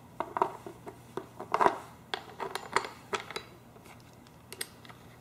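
Small hard clicks and clatters of a painted steel bracket being handled and fitted against the plastic base of a mini bike seat, coming in quick irregular bunches and then thinning to a couple of single clicks near the end.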